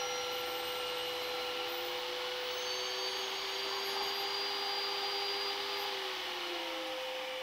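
Benchtop table saw running and ripping a taper along a wooden strip held in a taper jig: a steady motor whine with the hiss of the blade cutting. Near the end one tone of the whine starts to fall in pitch.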